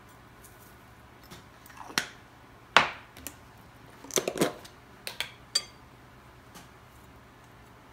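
Kitchen utensils and dishware knocking and clinking while ingredients are handled, about half a dozen sharp strikes, some ringing briefly, the loudest just under three seconds in.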